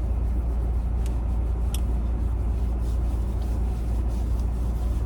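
Steady low rumble of a car engine running, with a couple of faint clicks about one second and nearly two seconds in.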